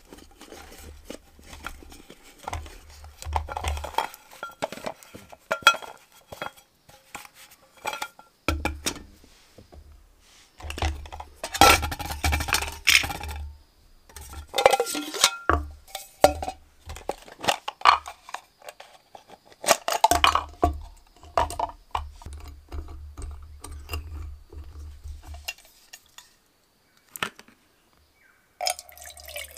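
Metal camping mug and its lid clinking and rattling as a cook kit is unpacked, with irregular knocks and clinks of small metal items against the mug and handling noise in between.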